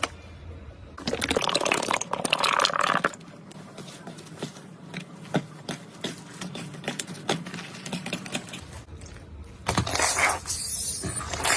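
Slime being squished and worked, giving wet squelching with many small sticky clicks and pops. It is louder and denser about a second in and again near the end.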